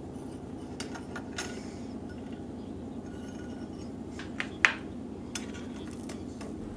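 Light metallic clinks and taps as small metal waffle-iron plates and utensils are handled and set down on a miniature stove grate. There are a few scattered taps and one sharper clink about two-thirds of the way through, over a steady low hum.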